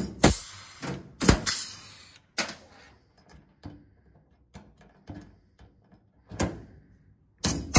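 Rivet gun setting pop rivets into the car's interior decking panels. There are loud snaps, each with a short noisy tail, at the start and about a second in, then lighter clicks and knocks, and two more snaps near the end.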